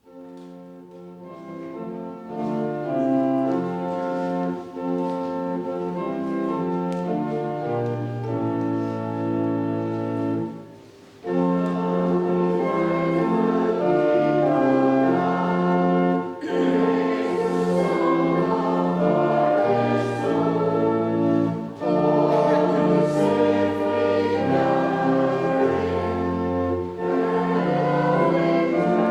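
Church music: slow, sustained chords of a hymn-like piece, each chord held for a second or two, with a brief break about eleven seconds in.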